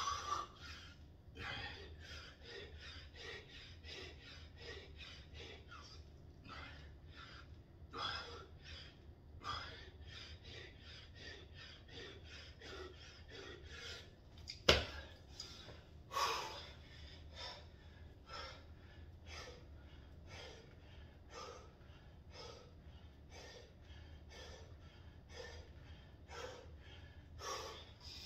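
A man breathing hard in quick, even breaths, with a few louder gasping breaths, out of breath from exercise. A single sharp click about halfway through.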